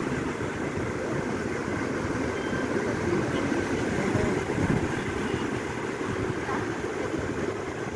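Sea waves washing and breaking among concrete tetrapods in a steady rush, with wind buffeting the microphone.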